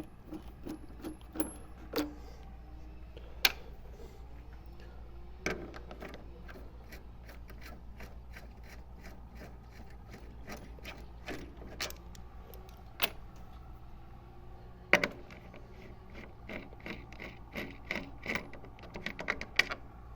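Hand tools undoing the screws of a car's plastic scuttle panel: scattered metallic clicks and knocks, with a quick run of clicks near the end.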